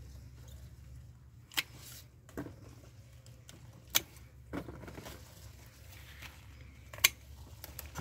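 Hand pruning shears snipping through pepper stalks, three sharp snips a few seconds apart, with softer knocks as cut peppers drop into a plastic tub.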